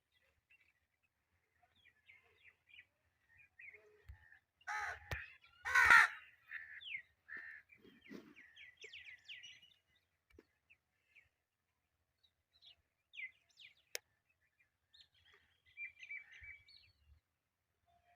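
Parrot squawking and chirping: two loud, harsh calls about five seconds in, then runs of quick chirps and a few scattered calls.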